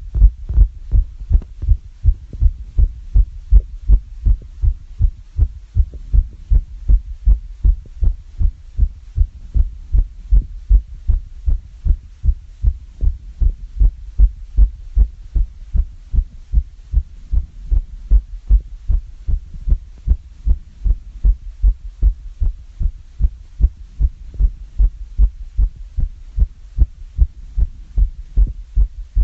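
A person's heart beating fast and evenly after exercise (climbing up and down stairs), each beat a low thump.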